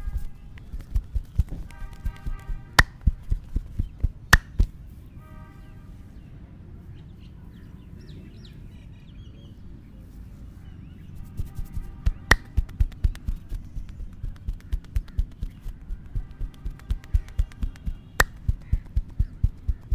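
Rapid, even hand chops and slaps of a percussive head and back massage, about three to four a second, stopping for several seconds in the middle and then starting again. A few single sharp snaps stand out among them.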